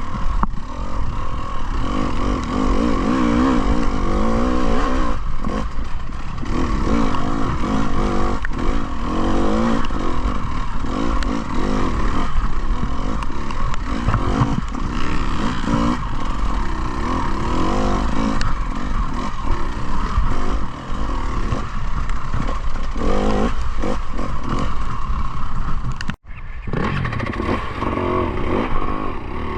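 Enduro motorcycle engine revving up and down as the bike is ridden off-road, with rattling and knocking from the bike and rough ground. The sound breaks off briefly about 26 seconds in.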